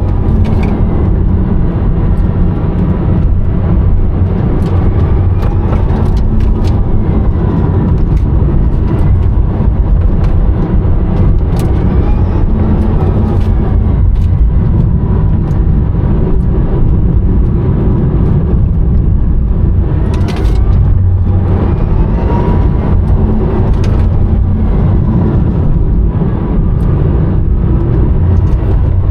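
Rimac Nevera electric hypercar under way, heard from inside the cabin: a loud, steady road and tyre rumble with a faint electric-motor whine that rises and falls in pitch as the car speeds up and slows.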